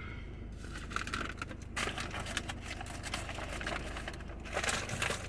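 Close-miked chewing of crispy fried food: rapid, irregular crunching and crackling clicks, in denser bursts a couple of times, over a steady low hum.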